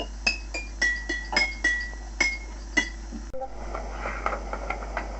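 Wine bottles and jam jars struck one after another, ringing out a nursery-rhyme tune note by note, a few notes a second. The playing stops about three seconds in with a break in the tape, and faint voices follow.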